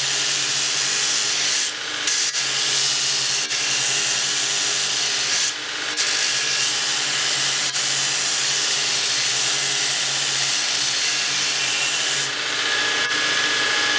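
Belt grinder grinding a forged steel sword blade: a steady abrasive hiss of steel on the running belt over the hum of the grinder's motor. The hiss thins out briefly three times as the blade's contact eases, the last time near the end.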